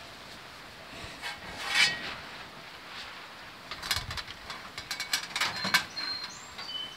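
Metal rack and pan handled inside a Masterbuilt propane smoker's cabinet: a scrape about two seconds in, then a run of clinks and rattles in the second half, with a brief metallic ring near the end.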